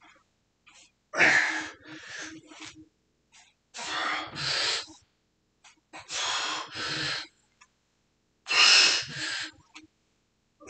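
A man breathing hard through bodyweight squats: a forceful gasping breath followed by a softer one, repeated about every two and a half seconds in time with the reps.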